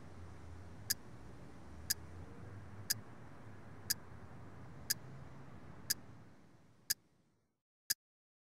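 Clock ticking steadily, one sharp tick a second, over a faint low hum that fades away about seven seconds in.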